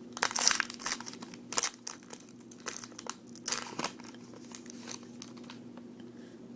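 Crinkling and rustling of trading card packs and cards being handled, in quick clusters that thin out after about four seconds, over a faint steady hum.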